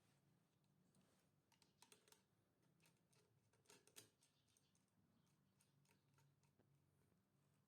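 Near silence: faint room tone with a light hum and scattered soft clicks, bunched about two seconds in and again about four seconds in.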